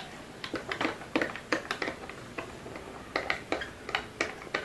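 A metal spoon clinking against a glass while coffee is stirred: a run of light clicks, about two or three a second.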